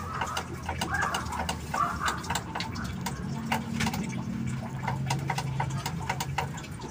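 Plastic front-panel buttons of a Sharp Primo CRT television clicking under repeated presses, over a low steady hum. The set stays in standby and does not come on: the fault is still there.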